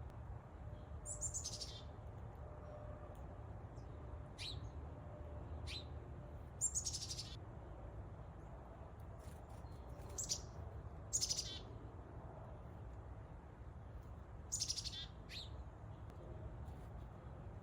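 Black-capped chickadee calling: short, high chirps and buzzy notes, about eight, scattered irregularly, over a steady low background rumble.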